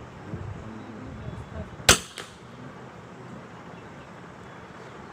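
A single .22 smallbore rifle shot, a sharp short crack about two seconds in, followed a moment later by a fainter click.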